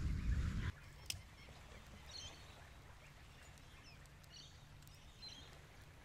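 A low rumbling noise cuts off abruptly under a second in. It leaves quiet outdoor ambience with a few faint, short bird chirps.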